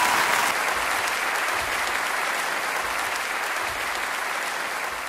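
A large audience applauding, dense steady clapping that slowly fades.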